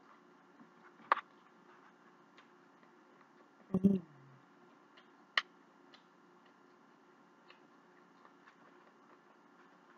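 Close-up eating sounds of someone chewing chicken: scattered small mouth clicks and lip smacks, two sharper clicks about one and five seconds in, and a louder, lower mouth sound about four seconds in.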